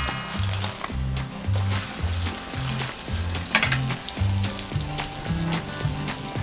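Egg omelette with preserved radish and scallions frying in hot oil in a pan, a steady sizzle and crackle. Background music with a repeating bass line runs underneath.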